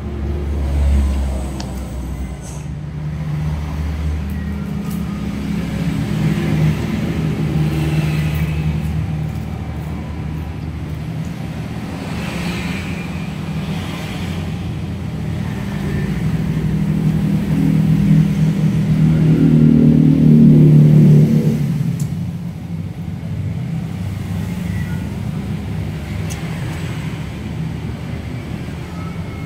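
Road traffic: a low engine rumble from passing vehicles that swells and fades, loudest about twenty seconds in before dropping away.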